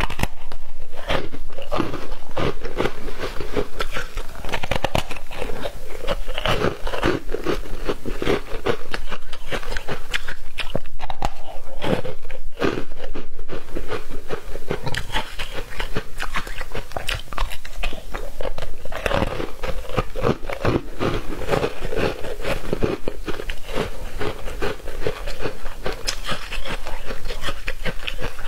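Close-miked biting and chewing of foam ice: a dense run of crisp crunches and crackles.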